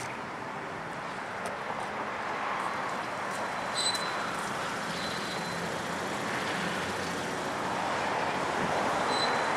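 Steady rushing vehicle noise that builds slightly toward the end, with two faint short high chirps about four and nine seconds in.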